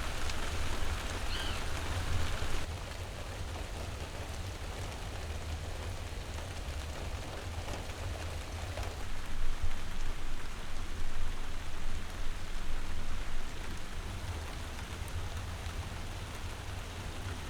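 Steady rain falling, a continuous hiss over a deep low rumble. The sound shifts in character about two and a half seconds in, and swells louder for a few seconds past the middle.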